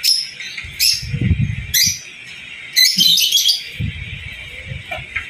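Small birds chirping in several short, sharp bursts, the busiest about three seconds in, over low thuds and rustling from handling.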